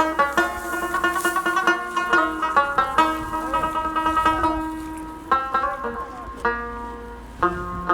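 Background music: a plucked-string instrument playing a quick, rhythmic melody.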